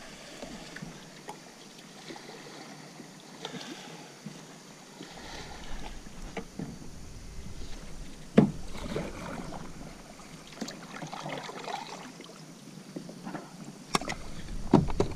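Kayak paddle strokes splashing and dripping in river water, uneven in rhythm, with a sharp knock about eight seconds in and another near the end.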